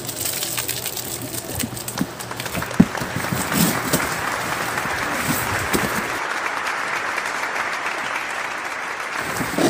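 Applause: a steady clapping hiss that builds over the first few seconds and stops shortly before the end. A few knocks sound in the first three seconds, the sharpest about three seconds in.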